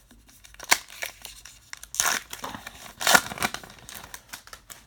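A baseball card pack's wrapper being torn open and crinkled, with two louder rips about two and three seconds in among smaller rustles.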